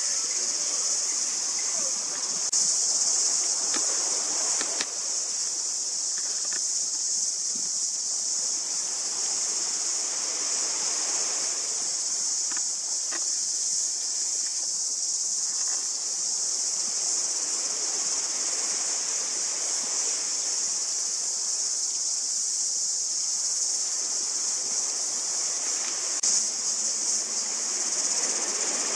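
A steady, high-pitched chorus of insects trilling without a break, over a low wash of waves that swells and fades every several seconds.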